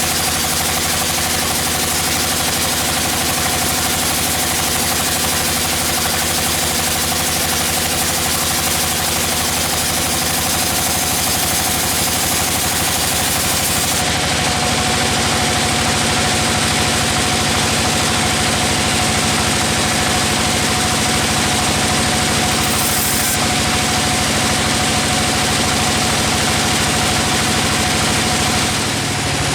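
Sawmill machinery running steadily: an engine drone with a constant high whine over it. About halfway through, the hissy top end falls away while the engine keeps running.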